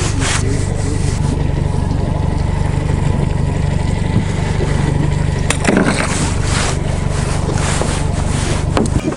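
Mercury 60 outboard motor running steadily at low speed, with a few knocks and rattles about five and a half seconds in.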